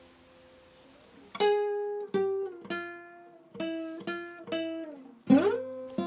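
Background music on a plucked string instrument: after a near-silent second and a half, single notes are plucked one by one in a slow melody, each ringing out, with a louder chord near the end.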